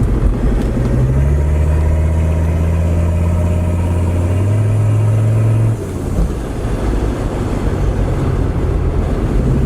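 Mercedes OM617.952 five-cylinder turbodiesel pulling under load while driving, heard from inside the cabin; the engine note builds for a few seconds, then drops away suddenly about six seconds in as the throttle eases, before building again near the end.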